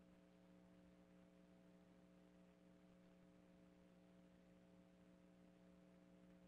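Near silence: a faint steady hum of a few low tones on the audio line.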